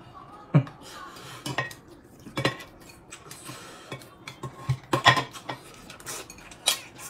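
Tableware clinking and knocking as people eat: irregular light clicks of utensils against bowls and plates, a few of them sharper knocks.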